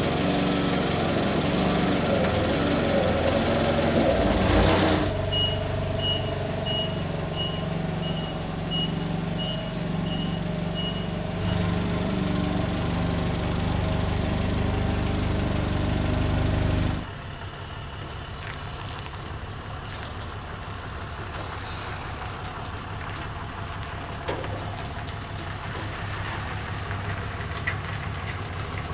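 Propane-fuelled Nissan forklift engine running as it lifts and carries a heavy load, with its reversing alarm beeping about one and a half times a second for about six seconds. Just past halfway the sound drops suddenly to a quieter, steady engine hum.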